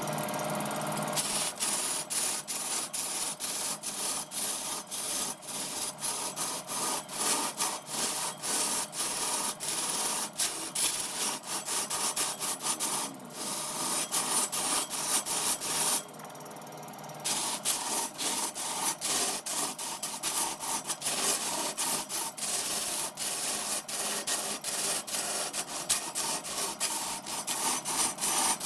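A tool working wood as it spins on a lathe, making a scratchy scraping noise with many rapid, irregular strokes. It drops out briefly about two-thirds of the way through.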